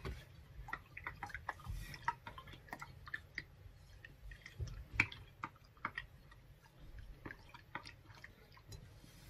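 A wooden spoon stirring a watery, soapy liquid in a stainless steel bowl: faint, irregular light clicks of the wood against the metal, with small splashes.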